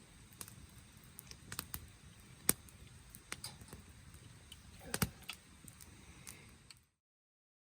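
Light clicks and small knocks at irregular intervals, two louder knocks about two and a half and five seconds in, over a faint hiss; the sound cuts off to silence near the end.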